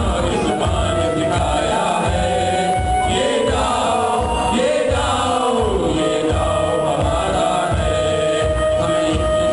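Choir singing a college anthem, with musical accompaniment over a steady low beat.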